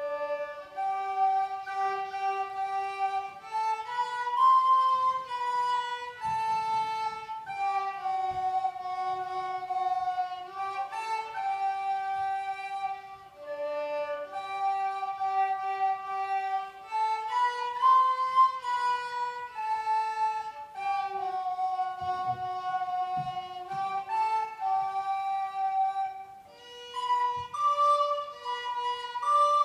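A recorder and a violin playing a slow hymn-like melody together as a duet, two melodic lines moving in step. The music starts suddenly out of silence, with a short pause between phrases near the end.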